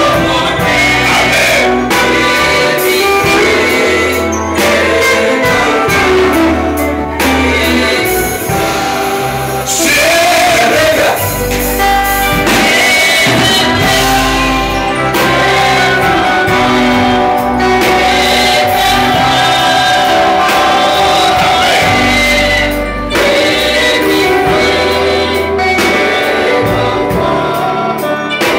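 Gospel group singing in harmony over a live church band of electronic keyboards, drum kit with cymbals and electric bass, playing loudly without a break.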